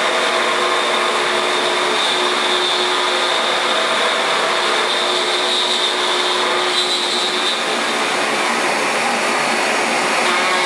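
CNC milling machine running on aluminum: a steady machine noise with a high, even whine from the spindle.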